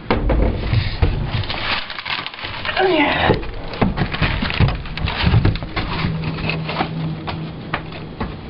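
Indistinct voices with scattered knocks.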